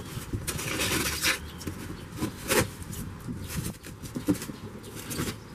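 Thin clear protective plastic film crinkling and rustling as it is peeled off and bunched up on a polycarbonate roof sheet, with a denser rustle early on and a few sharp crackles later.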